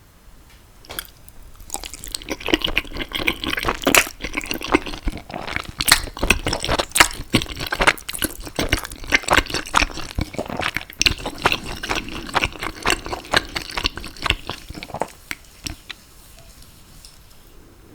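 Close-miked wet chewing and mouth sounds of a person eating saucy food: a dense run of small wet clicks and squelches. It starts about two seconds in and eases off near the end.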